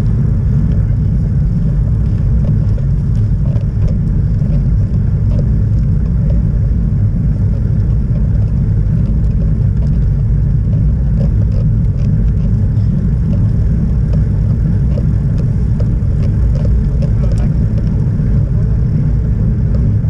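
Steady low wind rumble on the microphone of a camera on a road bike riding at speed, mixed with the hum of the tyres on tarmac.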